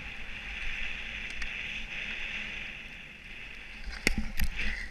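Steady rushing hiss of skiing fast downhill, skis sliding over groomed snow with wind on the helmet camera, then two sharp knocks close together about four seconds in.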